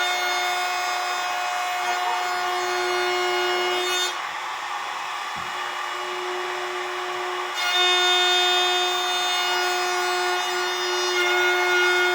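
A woodworking power tool's electric motor running steadily with a high, unchanging whine. From about 4 to 7.5 seconds in, the whine's upper overtones fade and then come back.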